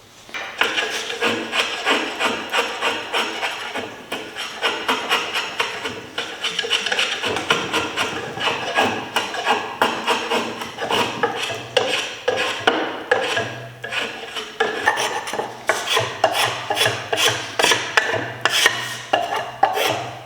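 Hand blade shaving wood off the end of a wooden tool shaft in repeated scraping strokes, about two a second, as the end is slowly shaped down to fit the socket of a pruning chisel.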